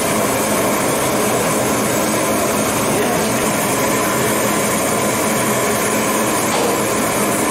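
Large gas burner under the cooking pot, burning with a steady, even rush of noise that does not change or break.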